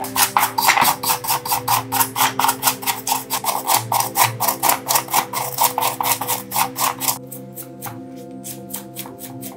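Rapid, even strokes of a hand tool scraping rusty metal, about five a second, dropping away about seven seconds in, over steady background music.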